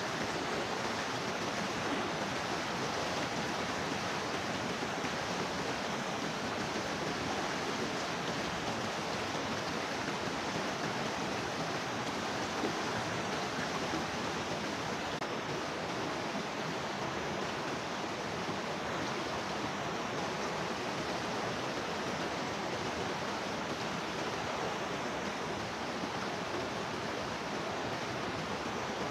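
Rushing water, steady and unbroken.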